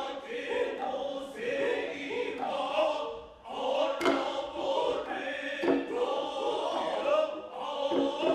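Male chorus chanting a kyogen song in long held tones, with sharp drum strokes falling several times across it.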